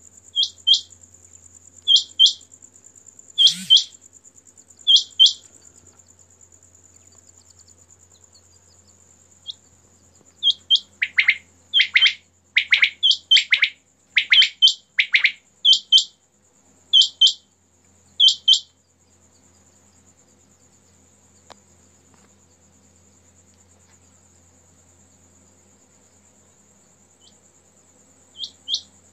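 Quail calling in short, sharp two-note phrases about every second and a half, with a faster run of longer, falling calls between about ten and sixteen seconds in, then a long pause before another pair near the end. A steady high insect trill runs underneath.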